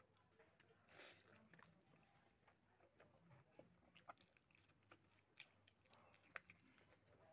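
Faint eating sounds: rice and pork hock curry squeezed together by hand, then a bite into the pork hock and chewing, heard as scattered small clicks and smacks.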